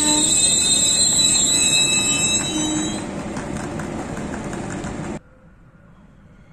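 Z2M electric multiple unit passing through a station, its wheels squealing in several high steady tones over the rumble of the train. The squeal fades after about three seconds, leaving the rumble, which cuts off suddenly about five seconds in, leaving only a faint background.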